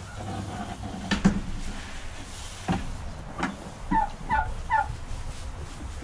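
A turkey gobbling: a quick run of three warbling notes about four seconds in. A few sharp knocks come before it, the loudest a little over a second in.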